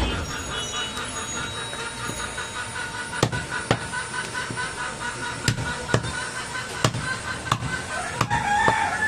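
Heavy butcher's cleaver chopping through goat ribs on a wooden log chopping block. The sharp chops start about three seconds in and come every half second to a second.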